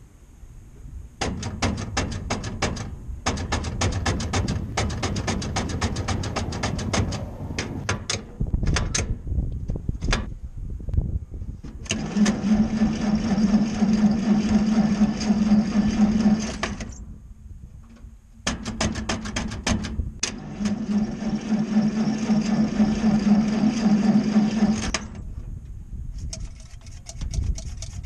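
The International KB-3 truck's engine being cranked on its starter in three long bouts without settling into a run: an even, rapid chugging of compression strokes over a steady starter hum.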